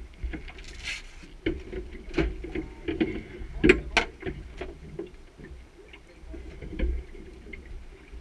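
Scattered knocks and clunks on a boat's fibreglass deck and fittings, the sharpest pair about four seconds in, over a steady low rumble.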